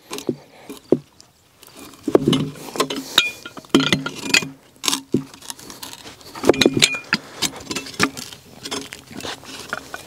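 Steel hook and grab of a LogOX forestry multi-tool clinking and knocking against spruce logs as it is set, released and used to shift a log end. The result is an irregular run of clicks and wooden knocks, two of them with a short metallic ring.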